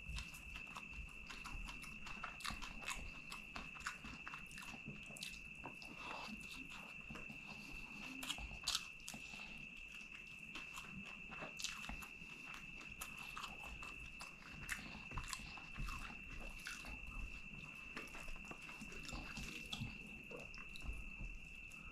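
Close-up eating sounds: wet chewing, lip smacking and occasional crunchy bites of rice and curry eaten by hand, with fingers mixing the rice and curry. A thin steady high-pitched tone sits under it.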